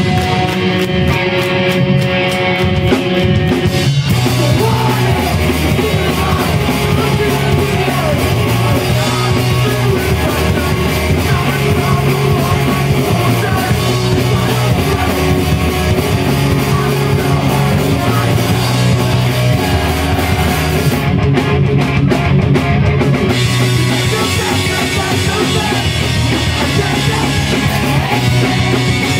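Pop-punk band playing live: distorted electric guitars, bass and drum kit with a singer. The full band kicks in about four seconds in, and the cymbals drop out briefly past the middle.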